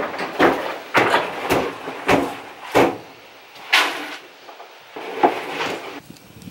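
Dry feed being scooped and poured into a plastic bucket: about seven short, noisy pours, half a second to a second apart.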